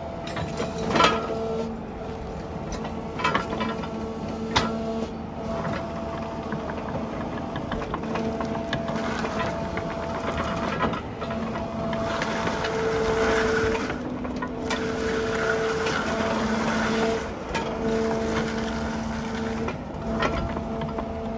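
Brokk 150 demolition robot's electric-driven hydraulic system running, with a whine whose tones switch on and off and shift as the arm and bucket are worked. A few sharp clicks or knocks, the loudest about a second in.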